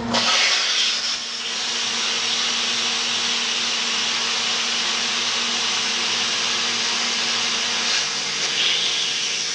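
Plasma cutter arc striking abruptly and then cutting steel plate with a loud, steady hiss, the torch carried along the cut by a magnetic-base CNC rig.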